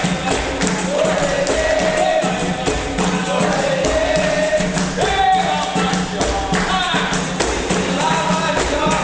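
Capoeira roda music: voices singing a melody over steady, rhythmic hand percussion.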